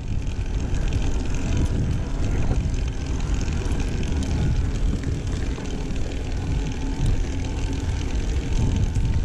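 Steady low wind rumble on the microphone of a camera riding on a mountain bike going down a dirt trail, mixed with tyre noise on the dirt and small rattles from the bike.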